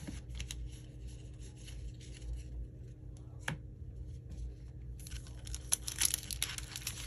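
Pokémon card booster pack's foil wrapper being torn open and crinkled: a dense crackling that starts about five seconds in, after a few light taps.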